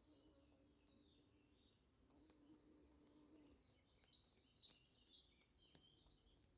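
Near silence: faint outdoor ambience with a few faint, high bird chirps clustered a little past the middle.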